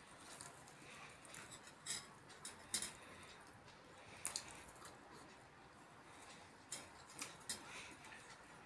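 Faint sounds of two people eating sambhar vada by hand, with a handful of short sharp clicks scattered through.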